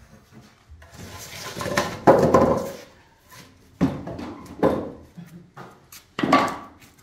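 Wooden sawhorse supports dragged and lifted out from under a plywood boat hull. A long wooden scrape swells through the first few seconds, then three separate wooden knocks and clatters follow as the pieces are handled.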